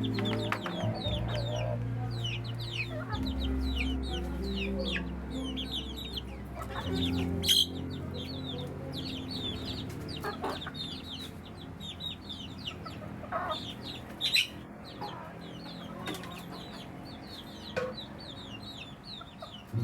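A flock of chickens clucking and peeping in a dense run of short, high, falling chirps as they crowd in to feed, with a couple of sharp knocks in the middle.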